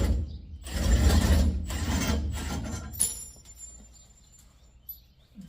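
Impact wrench hammering on a U-bolt nut: a short burst at the start, then one of about two seconds, then it stops.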